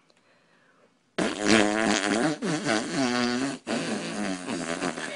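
A long, loud fart starting about a second in: a buzzy, rasping tone whose pitch wavers up and down, breaking off briefly twice before tailing away.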